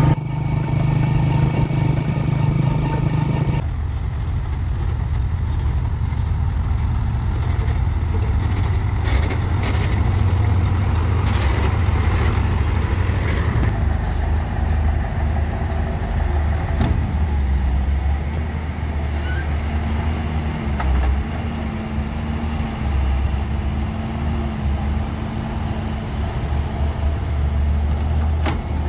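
A motorcycle engine running while riding for the first few seconds, then a sudden change to a Doosan DX140W wheeled excavator's diesel engine running steadily as it digs and loads soil. Occasional clatter and knocks come from the bucket and falling soil, clustered about ten seconds in.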